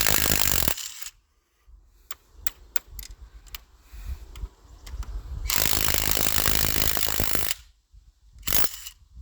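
Impact wrench running in bursts: one cuts off under a second in, a longer burst of about two seconds comes past the middle, and a short one near the end, with sharp metallic clinks of sockets and bolts in between.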